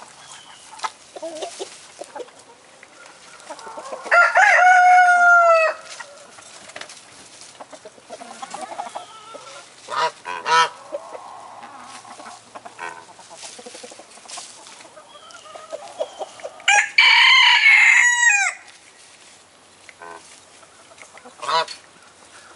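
Chickens clucking as they forage, with two long, loud calls: one about four seconds in and one about seventeen seconds in. Shorter sharp calls come between them.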